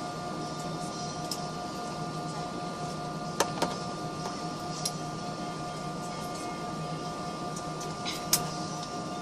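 Steady drone of an airliner's engines heard inside the passenger cabin, an even hum with several constant tones over a hiss. A few sharp clicks stand out, two together about three and a half seconds in and one near the end.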